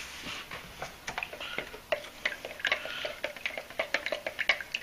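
A wooden paint stir stick clicking and scraping against the wall of a plastic mixing cup as activated 2K sealer is stirred, in quick irregular taps.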